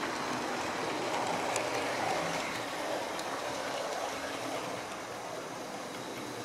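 Model InterCity HST train with its coaches running along the layout's track: a steady, even running noise of the wheels on the rails, easing off slightly about five seconds in as the train moves away.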